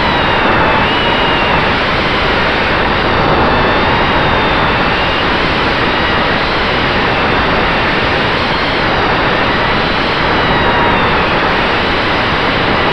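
FPV racing quadcopter's motors and propellers heard from its onboard camera: a loud, steady rushing noise with a faint whine that wavers up and down in pitch.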